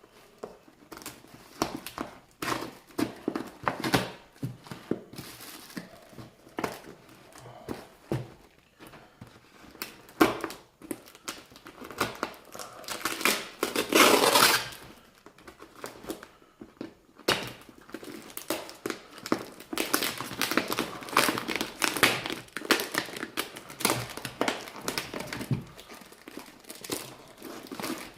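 A cardboard parcel being opened and unpacked: packing tape slit with a pocket knife, and cardboard flaps and packing material rustling, crinkling and tearing in irregular bursts. The loudest, longest rip comes around the middle.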